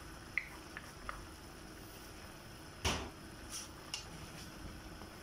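Wooden spatula knocking and clicking against a pan of stir-fried vegetables as the dish is stirred: a few light clicks at first, one louder knock about three seconds in, then two smaller ones.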